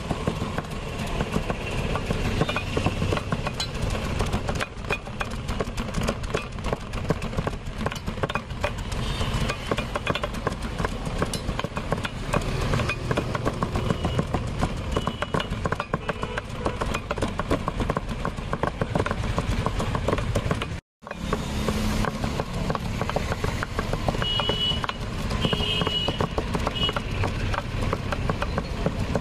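Raw jackfruit being chopped fine with two long knives on a round chopping block: rapid, continuous blade strikes, over steady street traffic noise. The sound cuts out for a moment about three-quarters of the way through.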